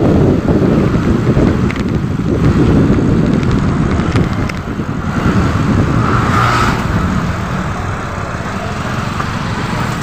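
Street traffic, with motorcycle and car engines running close by, heard over a low rumble of wind on the microphone from the moving rider. A short, higher-pitched sound stands out about six and a half seconds in.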